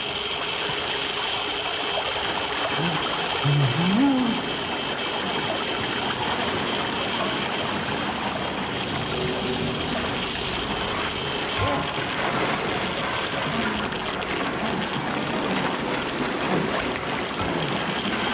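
Water trickling and sloshing in a flooded basement under a steady droning film score, with a brief rising tone about four seconds in.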